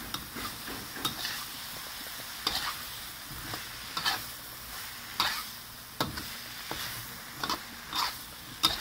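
Shrimp and carrot filling sizzling in a wok while a spatula stirs and scrapes it, a short scrape roughly every second over a steady sizzle.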